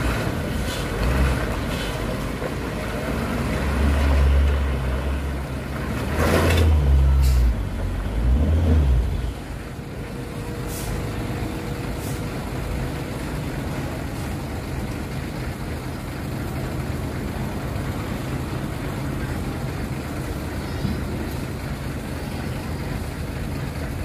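Diesel tanker truck engine working hard under load as the truck lurches through deep potholes, swelling loudest between about three and nine seconds in, with a short hiss near six seconds, then running more steadily as it pulls away.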